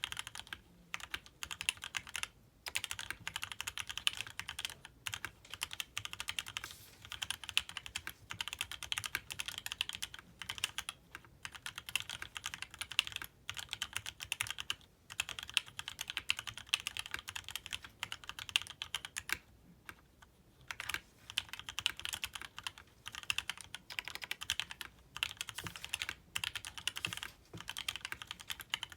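Fast continuous typing on a mechanical keyboard with lubed Gateron Ink Black linear switches on an aluminium plate, with sound-dampening material inside. Dense keystroke clacks with a few brief pauses.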